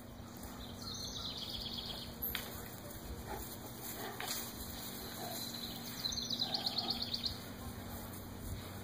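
A songbird singing a rapid high trill, twice, each about a second long. The second trill is louder and comes about six seconds in.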